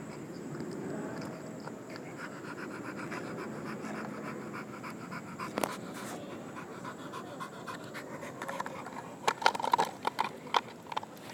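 A dog panting rapidly and evenly, with a few sharp knocks or clicks, one about halfway through and a loud cluster near the end.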